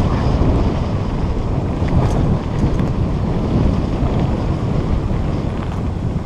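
Wind buffeting a GoPro's microphone while a mountain bike rolls fast down a dirt trail: a steady low rumble of wind and tyres on dirt, with a few small knocks from the bike.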